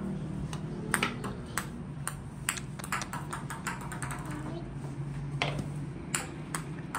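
Small plastic balls bouncing and rolling on a glass tabletop: an irregular run of sharp clicks and ticks, several a second, over a steady low hum.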